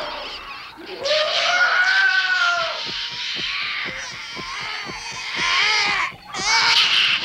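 Cartoon creature sound effects for the simian bats, winged monkey-like creatures, shrieking and chattering: a string of short squealing calls that rise and fall in pitch, starting about a second in, with a brief break near the end.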